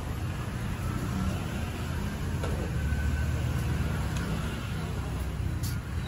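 Steady low rumble of street traffic, swelling about halfway through as a vehicle passes, with a few faint clicks.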